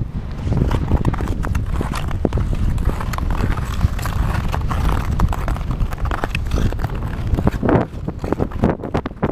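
Ice skates striding over glare lake ice, a dense run of sharp clacks and scrapes, with wind rumbling on the microphone.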